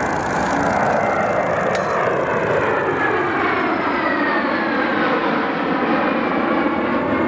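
Formation of three Mitsubishi F-2 fighter jets passing overhead: steady jet engine noise with a high whine that slides down in pitch about halfway through as they go by.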